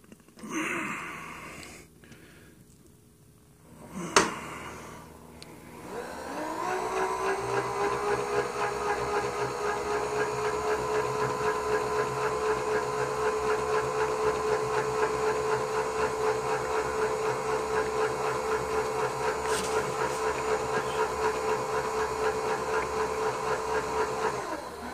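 PM 932M milling machine's spindle motor starting about six seconds in, its whine rising as it spins up, then running steadily with a fine even ripple until it shuts off near the end. A sharp click comes a couple of seconds before it starts.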